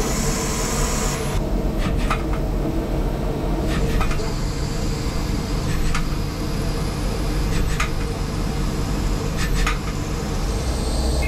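Swiss-type CNC lathe running: a steady machine hum and coolant spray as the tools cut a spinning copper-alloy bar, with a few sharp clicks now and then.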